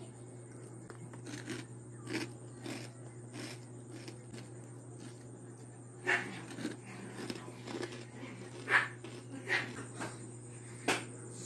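Irregular crisp crunches, a few louder ones in the second half, from crispy chicharon pork rinds being bitten and chewed, over a steady low hum.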